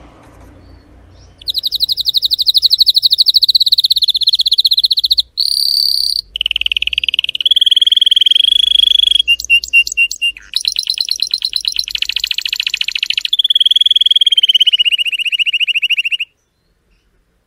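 Male canary singing a long song of rapid rolled trills, switching to a new trill every second or two. The song starts about a second and a half in and cuts off suddenly near the end.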